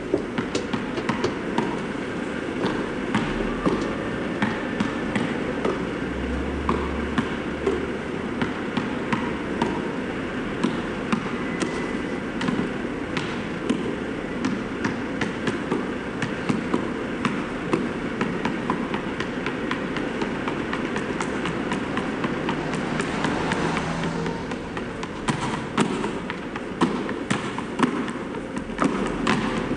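Many basketballs bouncing on asphalt at once, a dense unbroken patter of bounces. Sharper single bounces stand out more plainly near the end.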